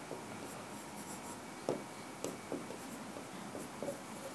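Faint handwriting: scattered short scratching strokes and light taps of writing, the strongest about one and a half seconds in.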